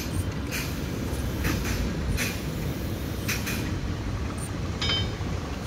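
Vintage railway passenger coaches rolling slowly past, a steady low rumble broken by irregular metallic clicks and clanks from the wheels and couplings, with a brief high metallic ring about five seconds in.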